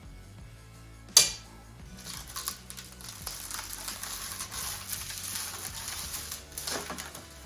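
Blue protective plastic film being peeled off an aluminium wing skin by winding it onto a broom handle: a sharp knock about a second in, then a steady crackling rip lasting about five seconds.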